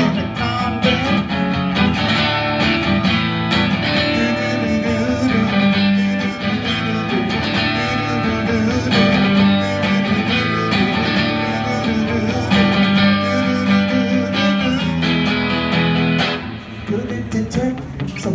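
Silvertone electric guitar played through an amplifier, strummed steadily as an instrumental break between verses. The playing thins out and drops in level about two seconds before the end.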